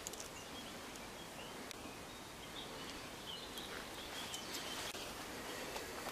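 Quiet outdoor ambience: a steady faint hiss with a few short, high bird chirps from about midway through.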